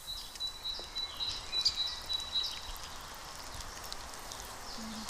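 Quiet outdoor ambience: a few faint high bird chirps over a soft hiss, with a thin steady high tone that stops about halfway through.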